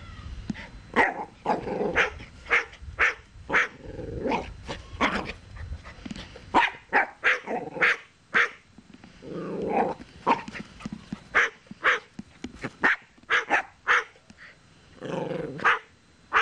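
Cockatoo imitating a dog: a long string of short, sharp barks, about two a second, broken by a few longer, lower calls.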